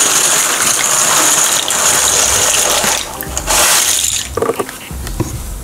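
Dry rigatoni rattling as it is poured from a cardboard box into a pot of water, in two pours, the second short and ending about four seconds in.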